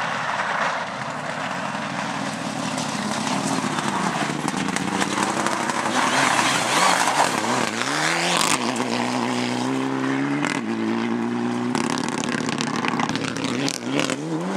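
Mitsubishi Lancer Evolution rally car's turbocharged four-cylinder engine under hard acceleration, its pitch rising and dropping back at several gear changes in the second half, over a steady rush of noise.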